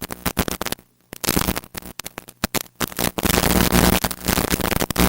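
Television static: dense electrical crackling over a hiss with a steady mains hum underneath, the sound of a ground fault in the wiring between a TV and a video player. The crackle drops out briefly about a second in.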